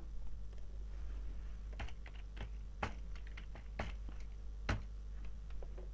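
Computer keyboard typing: irregular single keystrokes, a few a second, starting about two seconds in, over a faint steady low hum.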